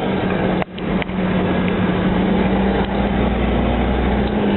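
Military vehicle running steadily, heard from inside the cabin: a constant engine drone with a steady hum under a dense rushing noise. The sound cuts out for an instant under a second in.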